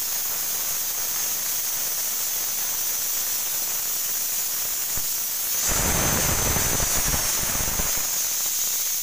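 Steady hiss from the lit gas stove with a pressure cooker on the flame. About six seconds in a louder, rough noise swells for about two seconds, then settles back into the hiss.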